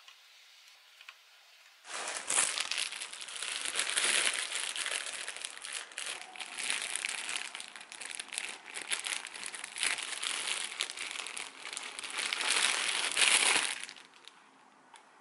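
Thin plastic bread bag crinkling loudly and unevenly as it is handled and opened. It starts about two seconds in and stops shortly before the end.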